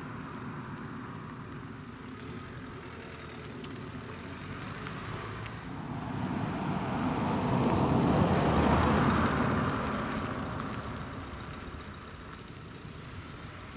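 A car passing close by on the road: its tyre and engine noise swells to a peak about two-thirds of the way through, then fades as it drives off. A brief faint high tone sounds near the end.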